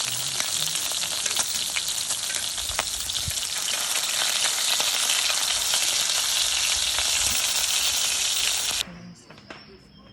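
Food sizzling in a hot pan: a steady, loud hiss with many small crackles and pops, cutting off abruptly near the end.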